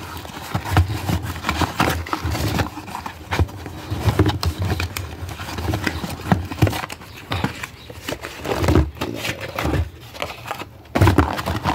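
Irregular knocks, bumps and rustling as cardboard ammunition boxes are shifted around inside a cardboard carton, with handling bumps on the phone.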